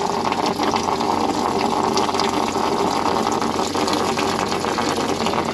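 Engine coolant pouring in a steady stream from an opened drain bolt on a DT466 diesel's oil cooler, splashing onto the floor below.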